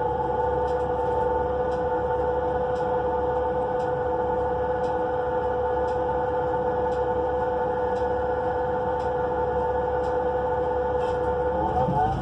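Inside the cabin of a NABI 42 BRT transit bus with a Cummins Westport L9N natural-gas engine and Allison B400R automatic transmission, cruising at steady speed: a low rumble under a steady whine held at one pitch. Near the end the whine's pitch bends as the bus changes speed.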